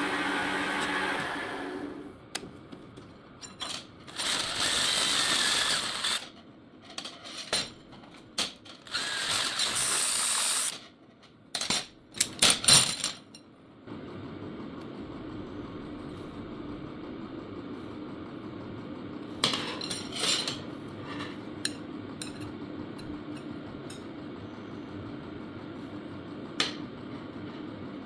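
A metal lathe runs as the end of a small metal tube is filed on it. Then come several loud bursts of noise and sharp metal clatter. After that, over a steady hum, a few light clinks sound as metal tubes are pushed through the holes of a drilled steel plate.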